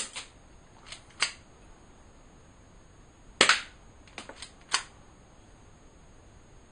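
BB gun being fired: a sharp crack right at the start and a louder one about three and a half seconds in, with lighter clicks and taps in between.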